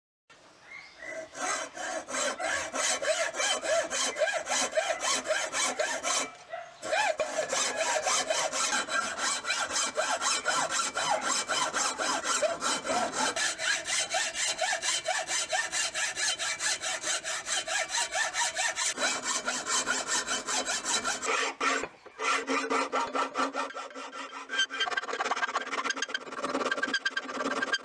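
Hacksaw cutting through a wooden hammer handle clamped in a vise, in quick, even back-and-forth strokes, with two short breaks. In the last few seconds a flat file rasps back and forth across the sawn end of the wood.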